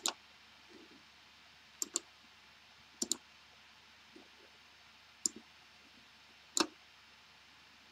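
Computer mouse button clicking five times, spread over several seconds, some as quick press-and-release pairs, over a faint steady hiss.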